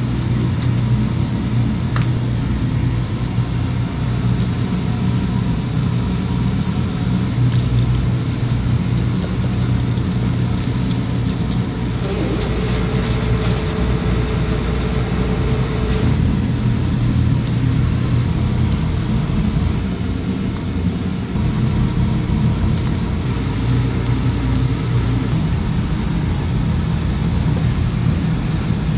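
Steady low rumble of commercial kitchen equipment running beside a stockpot on the burner, with a few faint clicks.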